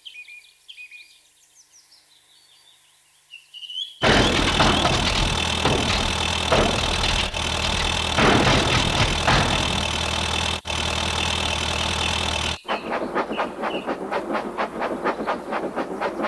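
Faint birdsong, then about four seconds in a loud steam locomotive suddenly starts up, running with steam noise. Near the end it changes to a fast, even run of chuffs.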